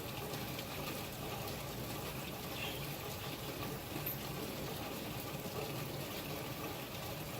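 Heavy rain pouring down steadily, an even rushing hiss of water.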